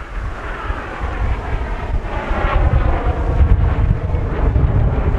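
Aircraft flying past, its engine noise swelling and sweeping down in pitch as it passes. Wind buffets the microphone throughout.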